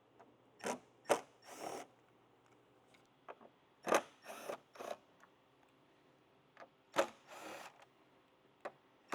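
Sparse clicks and short clatters of small metal parts and hand tools as screws and a windshield support bracket are taken off a motorcycle fairing, coming in three small clusters a few seconds apart.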